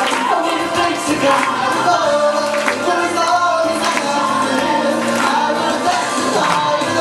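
Contemporary Christian pop song: singing with choir-like vocals over a backing track with a steady beat.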